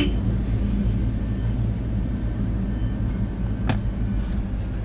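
Kia Bongo III truck engine running steadily under way, a low drone, with one sharp knock about three-quarters of the way through.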